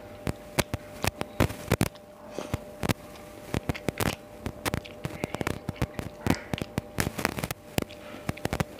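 Close-miked eating sounds: irregular wet clicks and smacks of chewing and fingers mixing rice and curry on a plate, over a faint steady hum.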